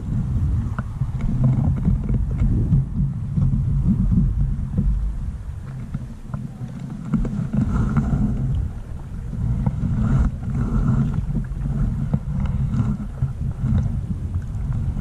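Wind buffeting the microphone: a low rumble that rises and falls unevenly, with a few faint knocks and clicks over it.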